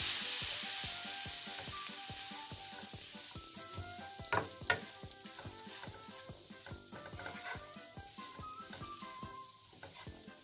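Mutton intestine pieces sizzling in hot oil in a pan, loudest at first and slowly dying down. A couple of sharp knocks of a spatula against the pan about four seconds in.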